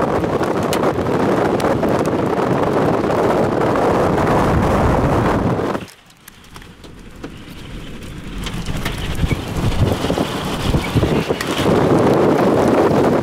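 Loud wind buffeting the microphone, a steady rushing noise. It drops away suddenly about six seconds in, then builds back up over the next few seconds.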